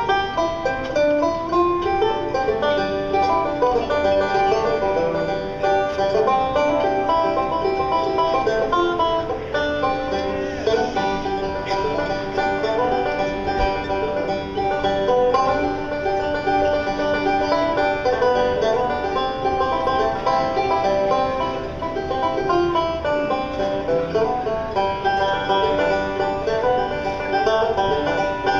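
Solo five-string banjo played in a steady stream of rapid picked notes, heard live through the theater's sound system from the balcony.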